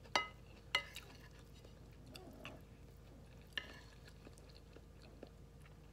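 Quiet eating sounds: tableware clinks, ringing briefly, twice near the start and once more about three and a half seconds in, with soft chewing between.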